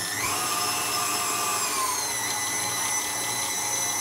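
KitchenAid Artisan stand mixer's motor whining as its dough hook kneads a stiff flour-and-water wrap dough; the pitch rises at the start as the speed is turned up, then eases down a little about two seconds in.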